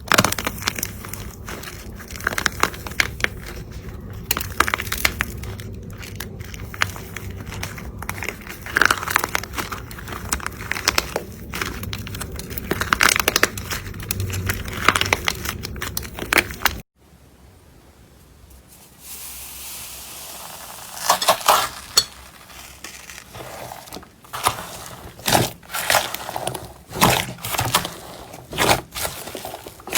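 Slime being squeezed and pressed by hand, making dense crackling and crunching sounds. About 17 seconds in there is a sudden cut to a quieter clip with a faint hiss, then separate sharp pops and crackles.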